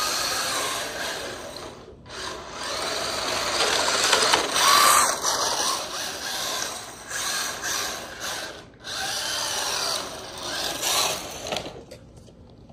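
Mini 1/16-scale RC drift truck's small electric motor whining in throttle bursts, its pitch rising and falling, with the tyres scrubbing as it slides. It cuts out briefly twice and dies away near the end.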